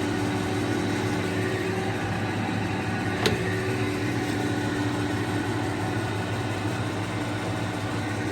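LeBlond Makino engine lathe running under power, its spindle drive giving a steady hum with a few held low tones. A single sharp click sounds a little over three seconds in.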